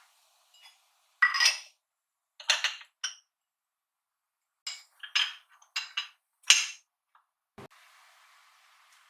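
Dishes and kitchenware clinking and clattering as they are handled, in about eight short, separate knocks. A dull thump comes near the end, followed by a faint hiss.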